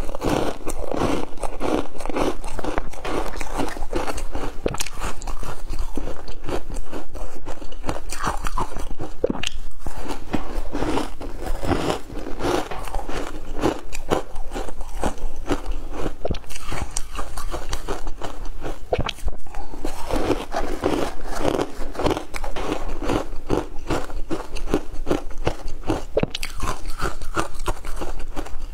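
Close-up crunching and chewing of frozen shaved ice: pieces of the ice block are bitten off and ground between the teeth in a rapid, continuous run of crisp crunches.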